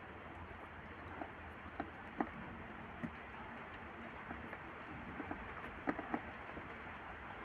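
Handling noise of fingers pressing electrical tape onto an LED bulb's aluminium LED board: scattered faint clicks and taps over a steady low hiss, the sharpest about two seconds in and two more close together near the end.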